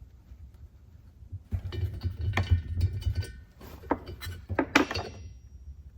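Light metallic clinking and rattling of hand tools and small steel engine fasteners being handled, starting about a second and a half in, with a sharper clink a little before the end.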